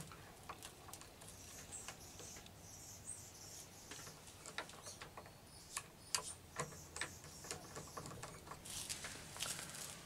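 Faint, irregular small clicks and taps of a screwdriver working on the metal of a vintage sewing machine.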